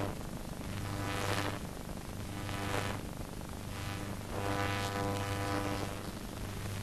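Band music faint under the soundtrack, a few held notes in separate phrases, over a steady low hum and hiss of an old optical film soundtrack.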